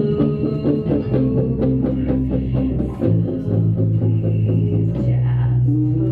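Grunge rock band playing live: guitars and bass guitar holding sustained notes and chords.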